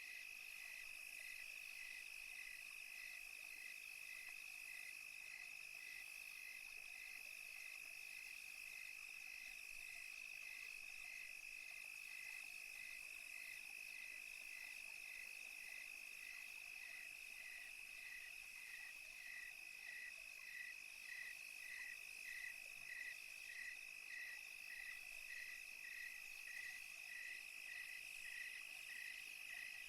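Crickets chirping: one steady high trill with a second, pulsing chirp repeating a little under twice a second, which grows louder in the second half.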